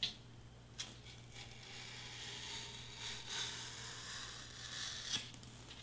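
Craft knife blade drawn through foam board in a long cutting stroke, a scratchy tearing sound with a few sharp ticks near the start and the end.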